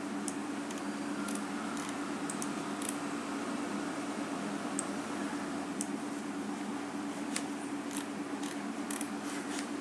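Steady low hum with hiss from the recording setup, with scattered soft clicks of a computer mouse as pictures are resized and dragged.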